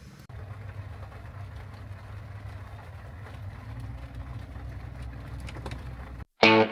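Low, steady rumble of a car engine running. Near the end it cuts off and guitar music begins.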